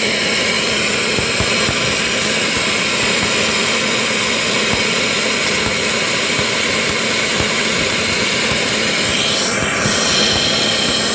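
Submerged arc welding rig running on stainless steel: a steady, loud machine roar and hiss with faint low crackling from the arc under the flux.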